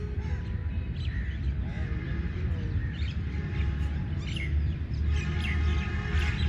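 Birds chirping and calling in short repeated notes over a low steady rumble. About five seconds in, a steady drone joins them.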